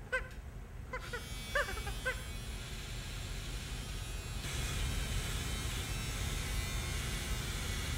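Short chimpanzee calls in the first two seconds, and an electric shaver buzzing from about a second in, growing louder and brighter about halfway through.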